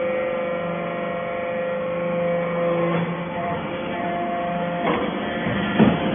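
Hydraulic power pack of a metal-chip briquetting press running: its electric motor and pump give a steady hum made of several held tones. The tones shift about three seconds in, and a couple of knocks come near the end.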